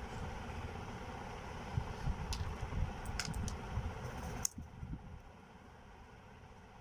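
Steady background hum with a few short, light clicks around the middle. The hum drops off abruptly about four and a half seconds in and stays lower.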